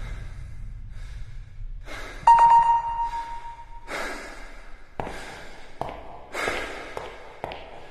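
A single bright bell-like chime about two seconds in, ringing on for over a second with an echo, followed by a handful of sharp echoing knocks at uneven spacing.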